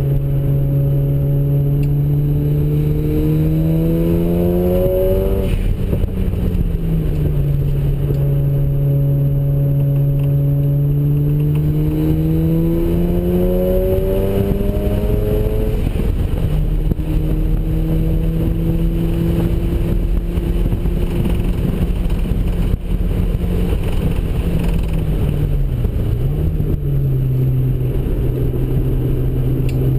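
Mazda RX-7's ported twin-turbo two-rotor rotary engine running hard on track. The revs climb, drop at an upshift about five seconds in, climb again to a second shift around sixteen seconds, hold fairly steady, dip briefly near the end, then rise again.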